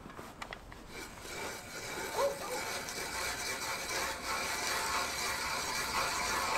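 Hand ice auger boring into river ice: a steady crunching and grinding of the blades cutting ice, growing gradually louder.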